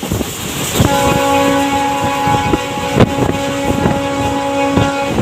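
WDP4B diesel locomotive hauling an ICF coach rake at full speed, sounding one long horn blast that starts about a second in and stops near the end. Under the horn the wheels clack over rail joints, with one louder knock about halfway through.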